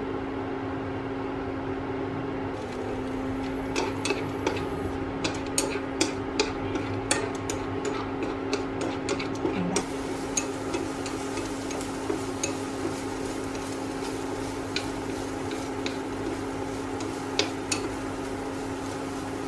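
A utensil stirring seitan strips in a frying pan, clicking and tapping against the pan many times, most thickly in the first half, over a steady low hum.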